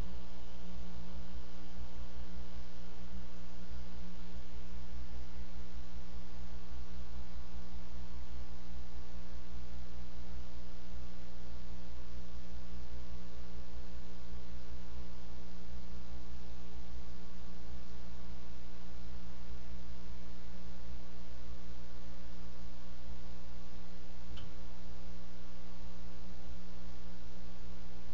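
Steady electrical mains hum in the wildlife camera's audio feed: a stack of unchanging low tones with no break. A single faint click comes late on.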